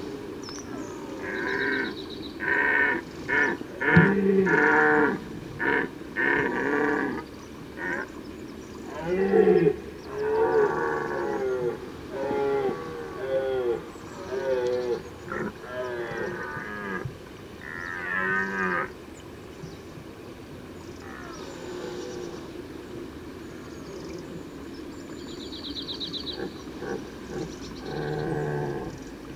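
Red deer stag roaring in the rut: a string of deep bellows, first several short roars in quick succession, then longer drawn-out calls, then a quieter spell before one last roar near the end. Picked up through a parabolic microphone.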